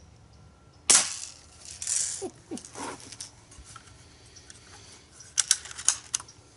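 Crosman 760 Pumpmaster air rifle firing a single shot, a sharp crack about a second in, followed by softer handling noise. Near the end comes a quick run of small metallic clicks from working the rifle's action.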